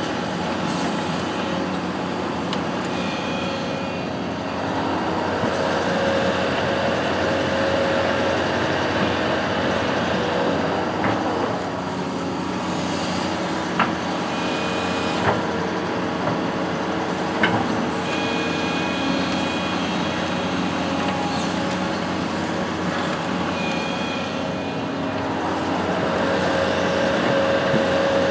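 Construction machine engine running steadily, with several short sharp clicks or knocks in the middle.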